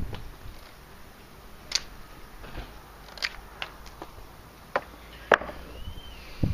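Handmade carbon-steel bushcraft knife shaving curls off a wooden stick: a series of short, crisp cuts at irregular intervals, about eight in all.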